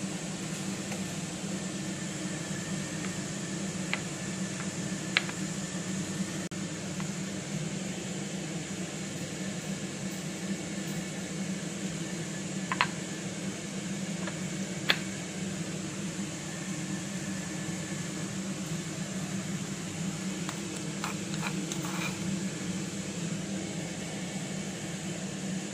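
Steady mechanical hum with a hiss, as from a kitchen fan or appliance running. Over it come a few sharp clicks of kitchenware against a metal bowl as sauce ingredients are added, with a small cluster of clicks near the end.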